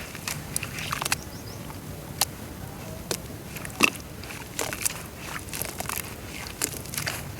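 Dry brown dirt crumbling in water: irregular sharp crackles and pops, with one louder snap about halfway.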